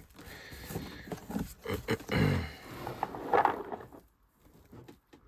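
Cardboard box and packing material being handled and pulled open, rustling and scraping with small clicks, with a short falling groan about two seconds in.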